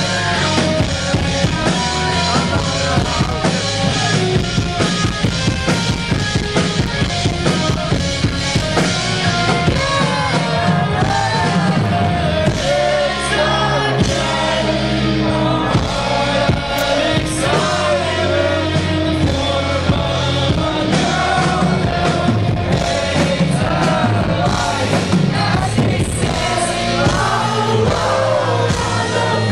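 Live rock band playing loudly with singing: electric guitars, keyboards and drum kit.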